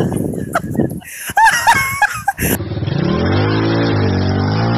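Shouts and laughter, then a small dirt bike's engine starts running in the second half, rising in pitch as it is throttled up and then holding a steady note.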